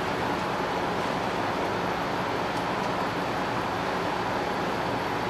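Steady, even rushing background noise with no change in level.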